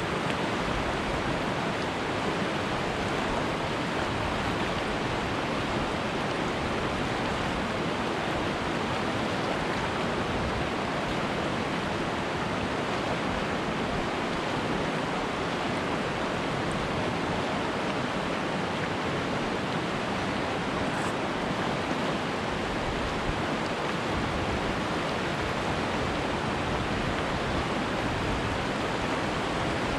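Umpqua River water rushing, a steady, even wash of noise with no change in level.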